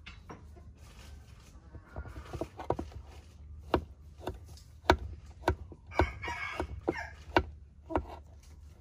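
A kitchen knife cutting eggplant on a wooden cutting board, giving a run of sharp, irregular taps and chops. A rooster crows for about a second, around six seconds in.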